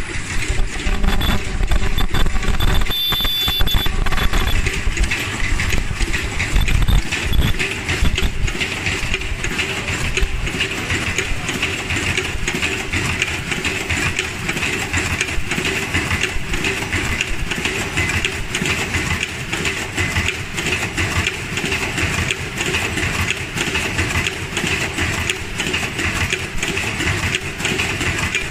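Nobel NBL-4800F automatic 1+1 surgical mask making machine running: a steady, dense mechanical clatter of rapid clicks over a continuous hiss from the fabric-feed rollers, earloop welding and folding units. Heavier low rumbling sits under it in the first several seconds.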